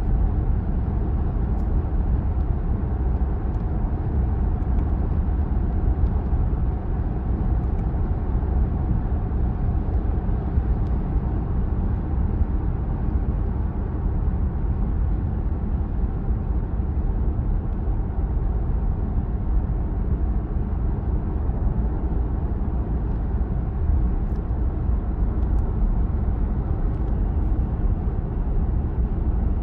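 Steady cabin noise inside a Peugeot 408 1.2 PureTech 130 on the move: an even, low rumble of road and running noise that holds level throughout.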